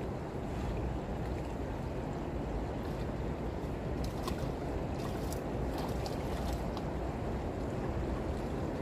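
Steady rushing noise of running river water and wind on the microphone, with a few faint clicks around the middle.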